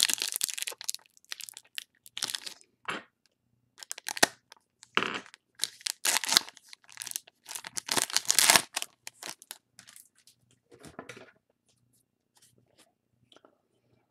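Foil wrapper of a 2019 Topps Gallery trading-card pack being torn open and crinkled by hand, in irregular crackling bursts that thin out after about nine seconds.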